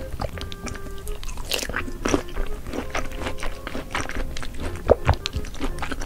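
Close-miked biting and chewing of peeled tangerines: a run of juicy, wet crunching clicks as the segments burst, with one sharper crunch near five seconds in. Soft background music plays underneath.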